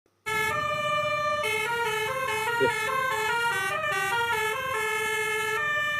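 Telolet multi-tone horn playing a tune of held notes that step up and down in pitch, sometimes two at once, with a short blip about two and a half seconds in. The tune comes out jumbled, as if the notes were swapped around, which the owner suspects is a wrong cable.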